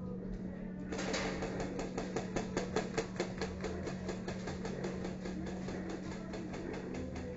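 Airsoft guns firing a rapid string of sharp shots, about four to five a second, starting about a second in and loudest between two and three seconds in. A steady low hum runs underneath.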